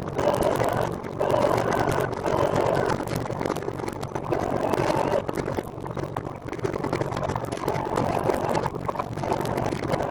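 Rushing wind and road noise on the move, swelling and easing every second or so.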